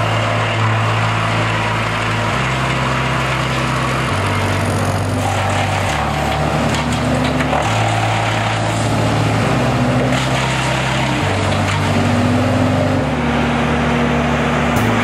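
Carlton 2012 12-inch disk wood chipper running and chipping brush and branches, a steady loud mechanical noise. Background music with a bass line moving in steps every second or two plays over it.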